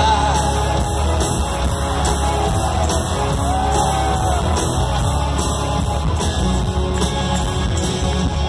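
Rock band playing live on stage: loud, continuous music with a steady drum beat and a voice that rises and falls partway through.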